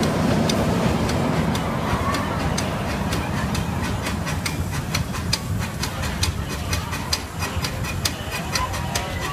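Grand Sierra miniature steam train rolling along the track: a steady rumble and hiss from the small steam locomotive, with sharp wheel clicks over the rail joints that come more often from about halfway through.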